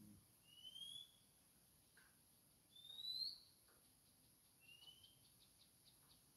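A bird calling: three short rising whistled notes about two seconds apart, the middle one loudest, followed near the end by a quick run of faint ticks.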